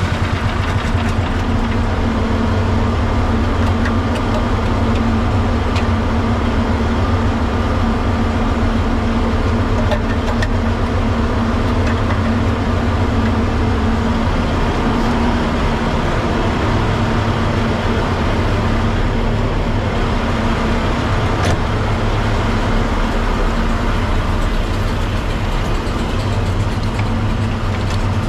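Fire truck's diesel engine running steadily, an even low drone whose tone shifts slightly about halfway through.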